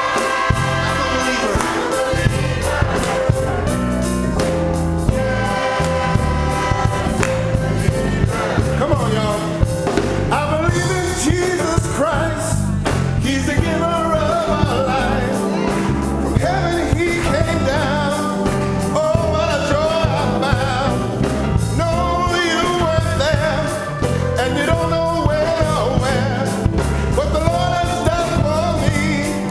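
Gospel choir singing with band accompaniment, a bass line stepping underneath and regular drum hits.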